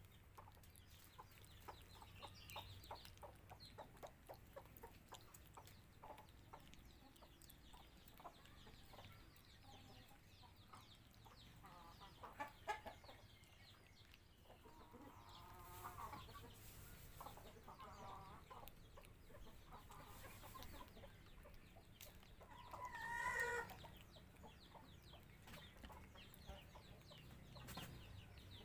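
Domestic chickens clucking faintly, with one louder call about four-fifths of the way through.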